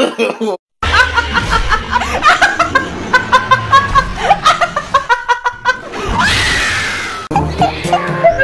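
A person laughing in a long run of quick, repeated bursts.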